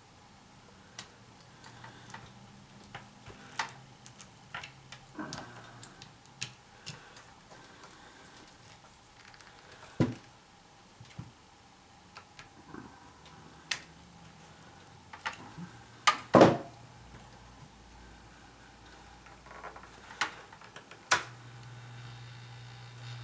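Scattered clicks and knocks of plastic humidifier parts and tools being handled during disassembly, the loudest a double knock about two-thirds of the way through. Near the end a low steady hum starts, the humidifier's fan motor switched on.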